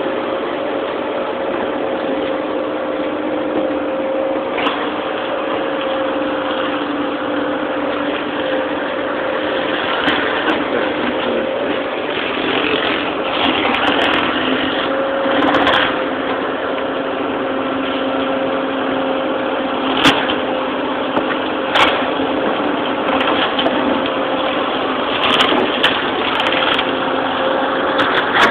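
Tractor engine and boom-mounted flail mower running steadily as the mower cuts a hedge, a continuous drone broken by scattered sharp cracks and clatters of branches being chopped, thickest toward the middle and near the end.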